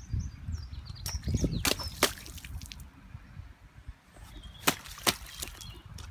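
Splashing in a rain puddle: a few sharp splashes about a second in, around two seconds and again around five seconds, over a low rumble, with small birds chirping.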